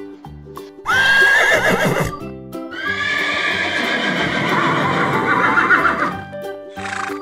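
A horse whinnying twice over background music with a steady beat: a short neigh with a rising, wavering pitch about a second in, then a longer whinny lasting about three seconds.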